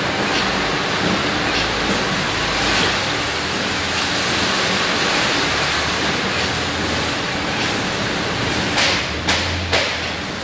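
Steady noise of a broccolini packing line running, with a low machine hum, and three sharp clacks a little before the end.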